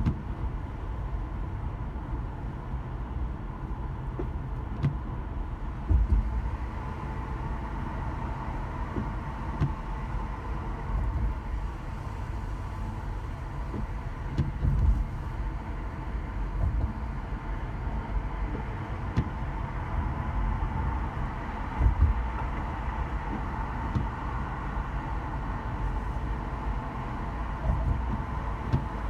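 Car driving in slow traffic: a steady low road and engine rumble, with a few short, louder thumps spread through it.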